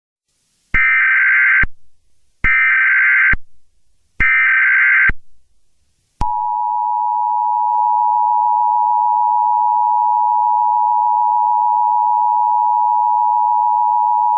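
Emergency Alert System tones: three short bursts of the SAME digital header, each just under a second long, then the steady two-tone EAS attention signal, held for about eight seconds.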